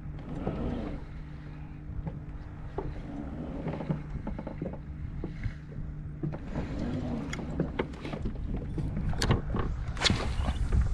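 Water lapping against a kayak hull over a steady low hum, with scattered knocks and clicks from the rod, reel and boat being handled, thicker and louder near the end.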